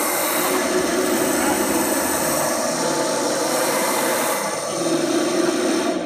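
Espresso machine sounds picked up by microphones on the machine and played back through audio software as a loud, dense, steady electronic drone with a hiss on top.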